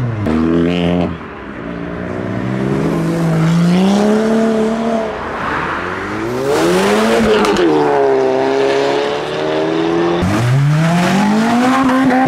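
Modified cars accelerating away, engine notes climbing through the revs and dropping at gear changes. About halfway through, one car's note peaks and falls away as it passes, and another pulls away hard, rising sharply, about ten seconds in.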